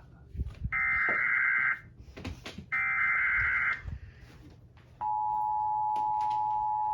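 Emergency Alert System SAME header: two bursts of digital data tones about a second long each, a second apart. About five seconds in, the steady two-tone EAS attention signal (853 and 960 Hz) starts and holds.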